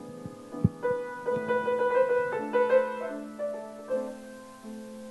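Slow piano music, single sustained notes moving gently from one to the next. Two soft low thumps sound in the first second.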